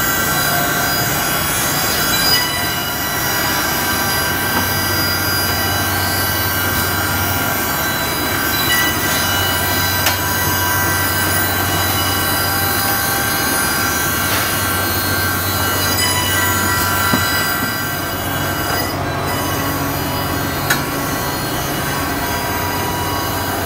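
Heavy-duty double-end cutting and milling machine running, its saw and milling motors spinning with several steady high whining tones over a constant mechanical noise, with a few short clicks.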